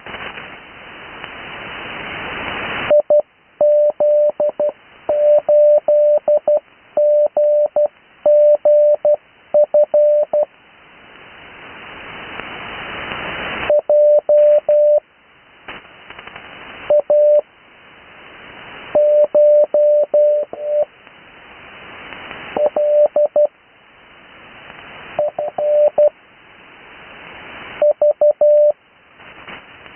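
Morse code (CW) sent over the 80 m amateur band for slow Morse practice. A single steady tone is keyed in dots and dashes spelling out call signs, in groups separated by pauses. Radio band hiss swells up in each pause.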